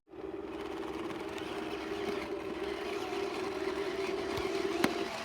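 Radio-controlled excavator's electric hydraulic pump whining steadily at one pitch, cutting off with a click near the end.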